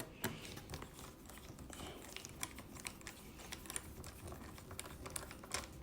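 Small screwdriver driving the last screw into a laptop's plastic bottom cover: a run of faint, irregular small clicks.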